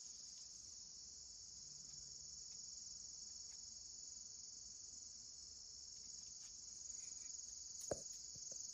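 A steady, high-pitched chorus of insects such as crickets, with one sharp knock near the end.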